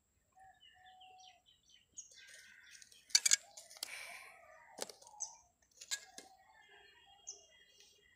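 Clicks and clacks of a metal drawing compass being set down and a plastic ruler being handled on paper, with a pair of sharp knocks about three seconds in and two more later. Faint short bird chirps in the background.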